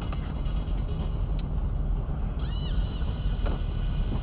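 Steady low road and engine rumble of a car driving on a highway, as picked up by the dashcam's microphone inside the cabin. A brief high squeak rises and falls about two and a half seconds in.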